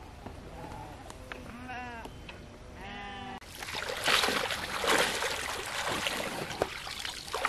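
Three short animal calls in the first few seconds, then, after a sudden cut, loud splashing and sloshing of water as a net holding fish is worked in shallow water.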